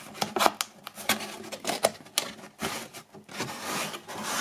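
A cardboard box being folded back together by hand: its flaps and tabs scraping and tapping against each other in a string of irregular clicks and rustles.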